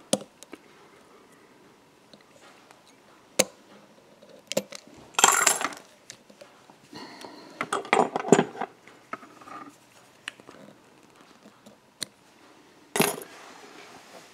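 Small clicks and metal clinks of fly-tying tools being handled while a whip finish is tied and the thread cut: a few sharp ticks and several short clattering rustles, the loudest about five seconds in.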